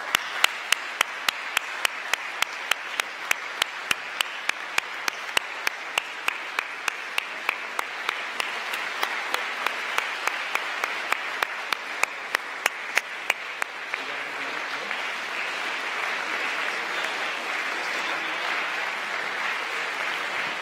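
A large hall audience applauding steadily. For the first 14 seconds or so, one clapper close by stands out, clapping sharply about three times a second.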